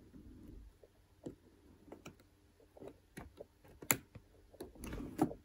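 Faint, irregular small clicks and taps of pliers and wire against the metal lugs of a push-pull pot's switch as a wire is bent round and pushed into a lug; the sharpest click comes about four seconds in.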